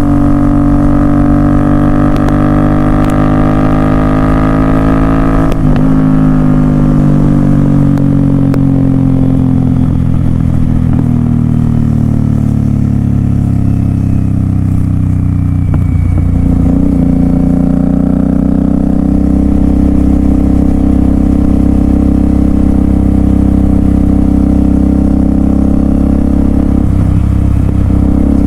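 Royal Enfield Continental GT 650's 648 cc parallel-twin engine running through Red Rooster aftermarket exhausts while riding. The loud exhaust note holds and slides slowly in pitch, with three brief breaks in the note.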